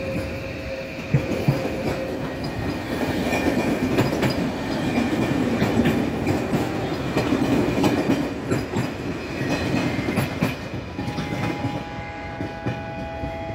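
Electric passenger trains running on the tracks: wheels clicking over rail joints over a steady rumble. A steady whine joins near the end.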